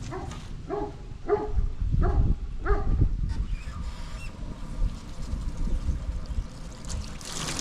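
A dog barking repeatedly, about one bark every half second, over a low rumble, then falling quiet. Near the end, water starts running with a steady hiss.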